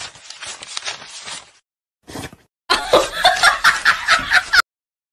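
Soft, quick flicks of paper banknotes being counted, then, after a short pause, a burst of loud laughter in rapid rhythmic pulses lasting about two seconds.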